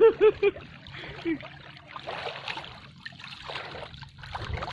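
Water splashing and trickling in several short bursts, likely a hooked tilapia being brought in at the surface. A few short vocal sounds come at the very start.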